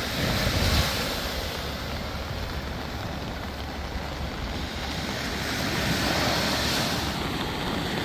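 Surf washing up a sandy beach, with wind buffeting the microphone in a low rumble that is strongest in the first second.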